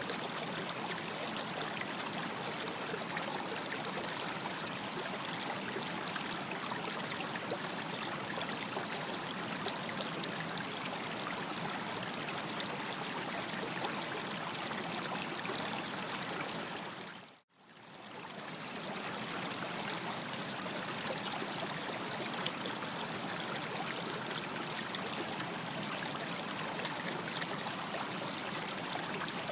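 Stream water running steadily over stones, an even rushing trickle. About two-thirds of the way through it fades out to silence for a moment and fades straight back in.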